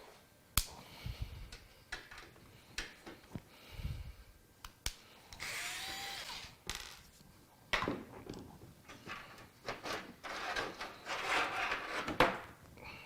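A computer power supply being taken out of a PC case: sharp clicks and knocks of metal parts being handled, a steady whir of about a second and a half midway, and scraping and rustling near the end.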